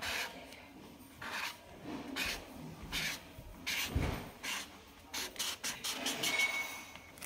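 Broad chisel tip of an alcohol marker scraping across sketchbook paper in quick back-and-forth strokes, a few per second, as a colour is filled in. A soft knock about four seconds in.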